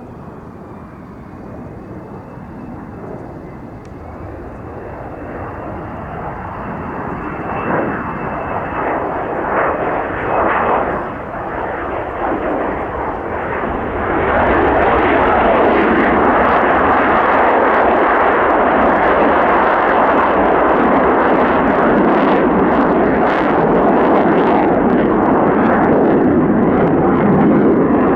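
F-35A fighter jet's single Pratt & Whitney F135 engine growing steadily louder as the jet approaches, then a loud, steady jet noise from about halfway through.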